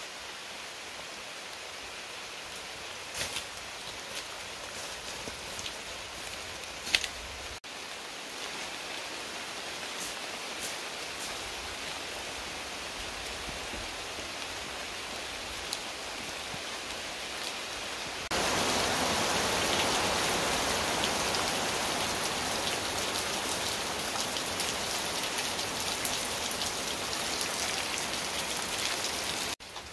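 Steady rain, with a few light clicks and rustles in the first part. About eighteen seconds in it abruptly turns louder and fuller: rain heard from under a corrugated roof.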